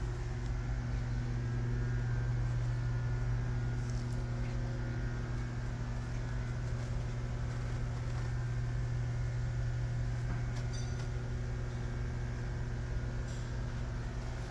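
Band saw running steadily, its motor giving a constant low hum.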